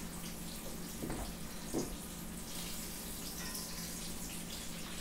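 Cornmeal-breaded green tomato slices sizzling in hot grease in a skillet, a steady crackling hiss. Two short soft knocks, about one and two seconds in, as the frying tomatoes are handled.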